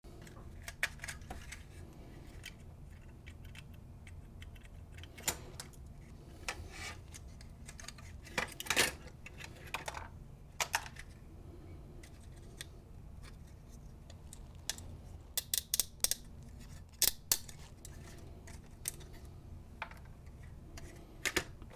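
Scattered clicks, taps and light clatter of small plastic parts and a hand tool being handled while a small motor is worked out of a toy car's plastic chassis, with a few brief scrapes, over a steady low hum.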